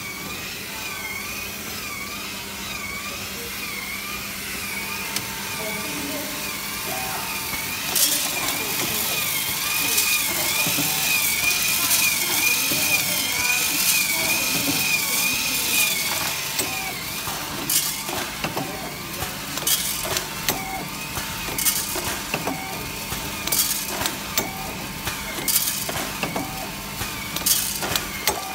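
Heat-sealing triangle-bag snack packing machine running: a steady hum with a high warbling whine and the rattle and hiss of candy-coated chocolate beans in the feed. A little over halfway in, irregular sharp clacks start, about one a second, as the forming and sealing jaws cycle.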